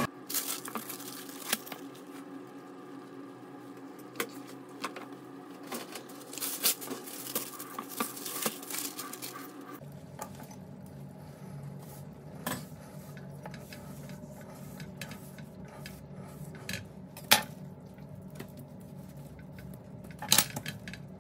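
Scattered clicks, taps and knocks of metal baking gear handled on a kitchen worktop: a baking tray and a steel tart ring pressed into a sponge and lifted off. The loudest is a single sharp knock about three-quarters of the way through.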